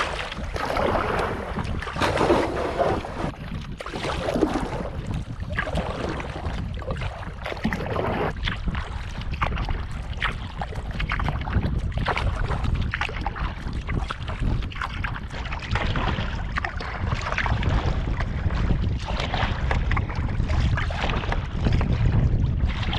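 Wind rumbling on the microphone over water lapping and splashing around a sea kayak being paddled.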